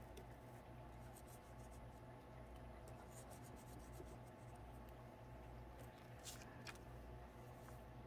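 Near silence: steady low room hum with a few faint small clicks and light rubbing from handling needle-nose pliers and a tiny wooden part.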